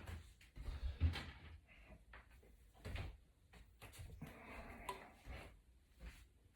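Faint, scattered clicks and light knocks of a small knife and hammer being handled against the iPad, with a brief scrape about four seconds in; the clearest knock comes about three seconds in.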